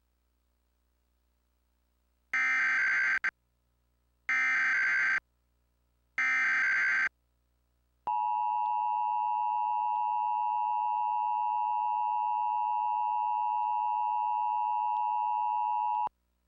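Emergency Alert System signal from a Trilithic EASyCAP: three one-second bursts of SAME header data tones, about two seconds apart, then the steady two-tone EAS attention signal held for about eight seconds before it cuts off. It is the opening of a required monthly test alert.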